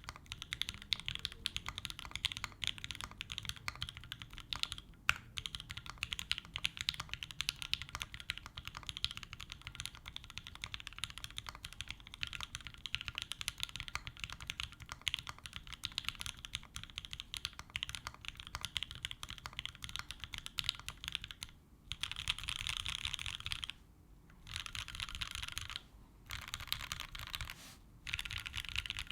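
Bear65 gasket-mounted mechanical keyboard with lubed FFF switches on an aluminium plate and GMK keycaps, typed on quickly in a dense, even stream of key clacks. Near the end come several bursts of unbroken rapid clatter, separated by short pauses.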